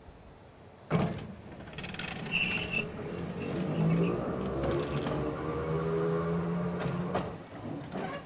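Electric railcar pulling away under power. A sharp clack about a second in, then the traction motors and gears whine, rising steadily in pitch as it gathers speed, and the sound falls away near the end as power comes off.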